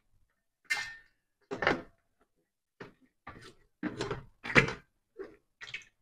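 Black grapes being crushed under a small glass jar pressed down on a perforated metal tray: a string of irregular squishes and knocks, about eight in six seconds.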